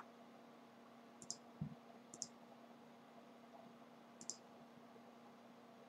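Faint computer mouse clicks, three short ones spread over a few seconds, over a quiet room with a faint steady hum. A soft low thump comes about one and a half seconds in.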